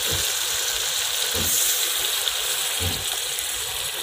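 Water poured into a hot pot of frying chicken and potatoes, hissing and sizzling steadily, with three short low thumps about a second and a half apart.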